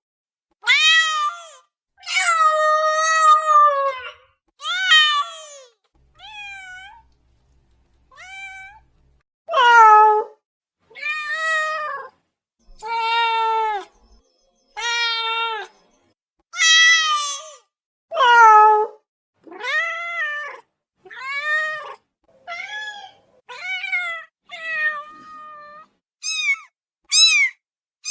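Domestic cat meowing over and over: about twenty separate meows of varying pitch and length, with short silent gaps between them. Near the end come several short, high-pitched meows.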